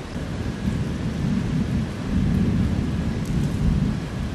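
Rolling thunder rumbling, swelling about a second in and loudest in the second half before easing, over a steady hiss of rain.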